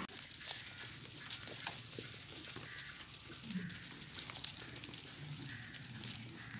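Flock of sheep and goats walking over dry ground: a steady patter of small hoof clicks and shuffling, with a few faint bleats.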